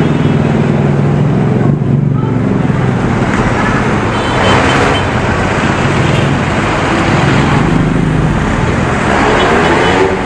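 Busy city road traffic, with jeepney and car engines running and vehicles passing close by; the noise swells as vehicles go by about halfway through and again near the end.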